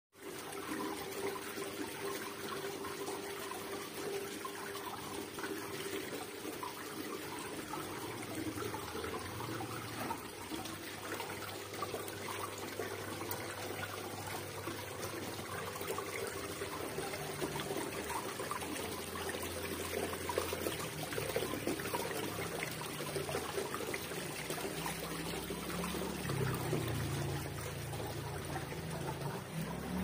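Water pouring and trickling down an artificial rock waterfall fountain into its basin, a steady splashing.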